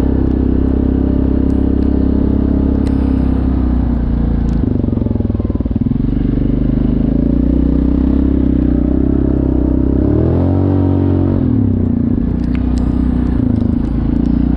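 Yamaha ATV engine running steadily while riding. Its note shifts about four and a half seconds in, and about ten seconds in the pitch dips and then climbs again as the throttle is eased off and reopened. A few light clicks and rattles sound over it.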